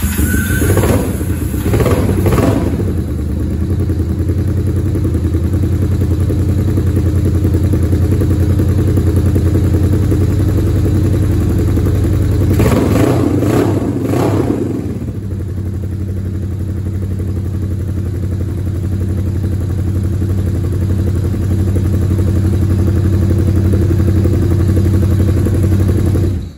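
A 1980 Yamaha XS400's air-cooled parallel-twin engine running for the first time after a rebuild. It catches right at the start, is blipped twice early on and revved for about two seconds around the middle, settles back to a steady idle between revs, and cuts off suddenly at the end.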